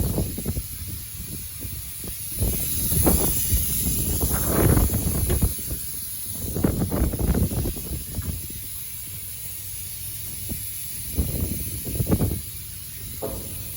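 Wind buffeting the microphone in irregular gusts, over a steady high hiss.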